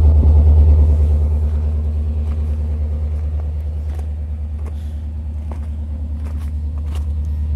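The 350 V8 of a 1990 Chevy Van 30 school bus idling, heard at the tailpipe as a steady low, pulsing exhaust rumble that eases a little as the microphone moves off. A few light clicks come in the second half.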